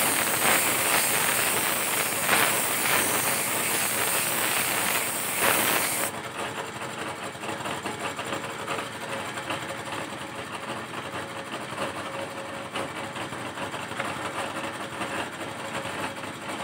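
Compressed-air paint spray gun hissing as it sprays paint onto a small test panel, cutting off suddenly about six seconds in. After that, the small air compressor feeding it runs on with a steady hum.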